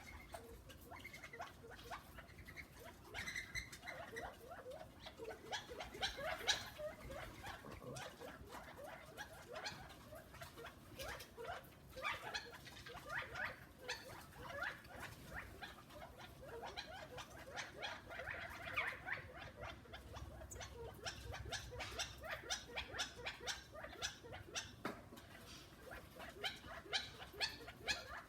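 Cats chattering at birds they cannot reach: quick runs of clicking, twittering calls coming in bouts, with a loud run near the end.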